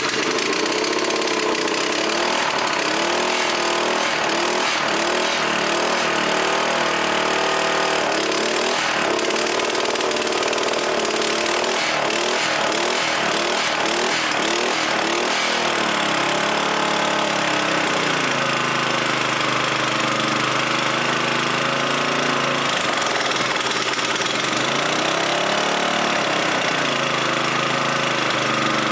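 196cc Honda-clone single-cylinder OHV engine running, its speed surging up and down every second or so for about the first half, then settling lower with slower swells as the choke and throttle linkage are worked by hand. It will only run on half choke, which the owner puts down to a clogged carburetor main jet that he could not remove to clean.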